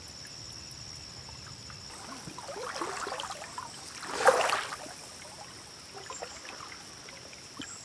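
Legs wading through shallow creek water, sloshing and splashing, loudest about four seconds in, over a steady high chirring of crickets.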